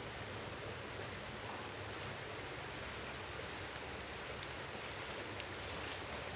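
Shallow river flowing over rocks, an even steady rush, with an insect's high steady trill that stops about three seconds in.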